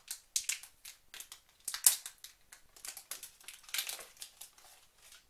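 Thin plastic protective film crinkling and crackling as it is peeled off a MagSafe 2 power adapter by its pull tabs: a quick string of sharp crackles, loudest about two seconds in and again near four seconds.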